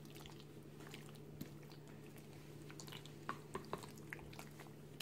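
Faint wet squelching and a few light clicks of a spoon mixing sliced beef through a thick Korean chilli-paste and soy marinade in a stainless steel bowl, over a steady low hum. The clicks come in a small cluster a little past three seconds in.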